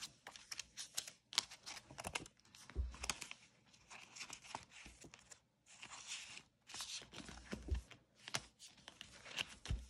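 Paper bills and cash envelopes being handled: rustling and crinkling with short clicks throughout, and a few soft thumps.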